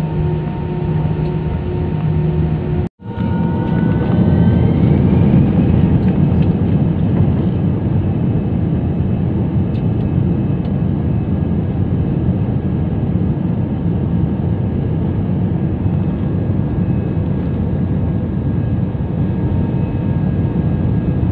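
Jet airliner engines heard from inside the cabin over the wing: a steady hum with tones, then after a brief break in the sound about three seconds in, the noise grows louder with a rising whine as the engines spool up, as for the takeoff roll, settling into a steady loud roar.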